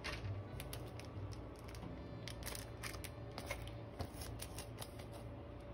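Irregular crinkles and light clicks of a paper-like screen protector's plastic film and card packaging being handled and moved, over soft background music.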